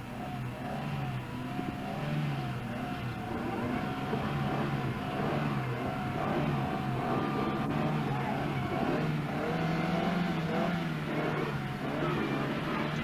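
Rally car engine revving hard on a stage, its pitch climbing and dropping again and again as it changes gear, growing slowly louder.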